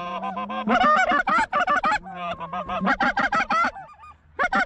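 Goose calls blown by hunters: rapid, overlapping honks and clucks in quick runs, calling to flocks of geese in flight, with a short lull near the end.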